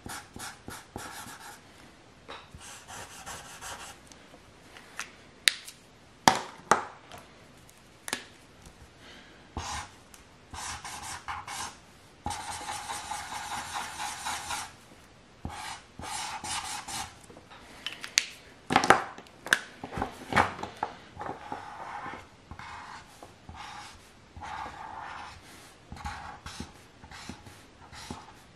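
Felt-tip marker scratching on paper as a drawing is coloured in, in bursts of short back-and-forth strokes. A few sharp clicks stand out, the loudest about six seconds in and again around nineteen seconds in.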